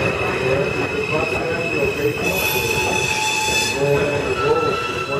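New York City Subway F train moving slowly through the station, its wheels giving a steady high-pitched squeal over lower wavering tones, with a brighter, harsher burst in the middle.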